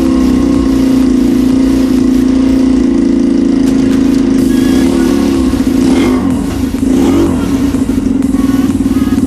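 A 150 cc pit bike's single-cylinder engine running steadily through its exhaust, with a brief change in pitch and level about six to seven seconds in before it settles again.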